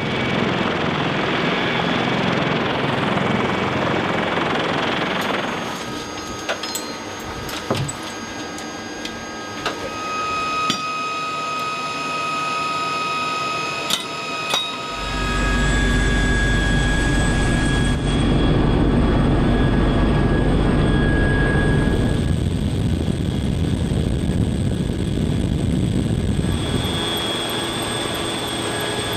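CH-53K King Stallion heavy-lift helicopter's turboshaft engines and rotors: a steady turbine whine and rush, then a quieter stretch with several sharp metallic clicks and clanks. From about halfway a louder, deep, steady rumble of the helicopter in flight, heard from inside the cabin.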